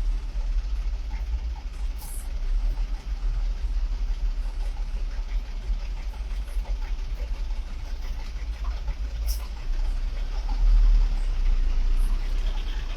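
Motor vehicle engines idling in stopped traffic: a steady low rumble that swells a little about eleven seconds in.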